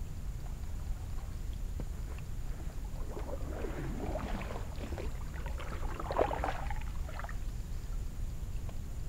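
Kayak paddle strokes, the blade splashing and dripping in calm water, from about three seconds in to about seven, over a steady low rumble.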